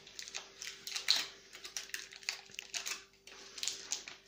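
Crinkling and crackling of a foil-paper butter wrapper being handled and peeled back, a quick irregular series of small crackles.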